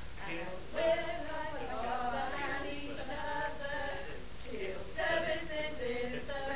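A small mixed group of women and men singing together unaccompanied (a cappella), holding sustained notes.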